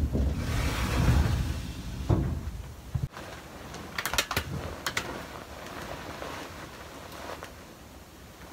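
A sliding door rolling shut with a low rumble and rustle, cut off sharply about three seconds in, followed about a second later by a few sharp clicks.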